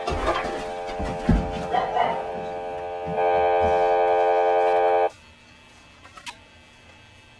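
A steady sustained musical chord, louder for its last two seconds, that cuts off suddenly about five seconds in, with a few thumps and knocks during the first two seconds. After it stops there is a low hush with one sharp click.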